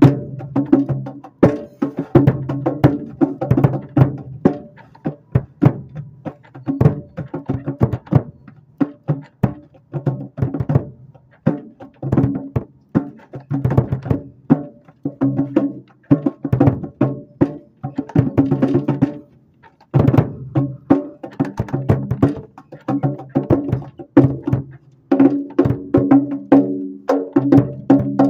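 Drum kit being played, snare drum hits heard close up from beneath the snare, in a fast, busy pattern of strokes several a second. The hits ring with a steady low tone, and the playing breaks off briefly about two-thirds of the way through before starting again.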